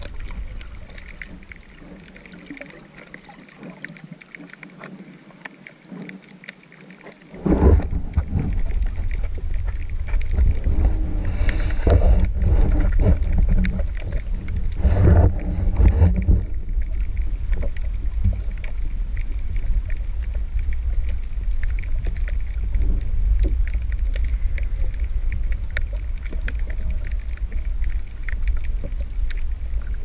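Muffled underwater noise picked up through a GoPro's waterproof housing: a low rumble of water movement with faint crackling throughout. It jumps much louder about seven seconds in, with a few stronger surges soon after.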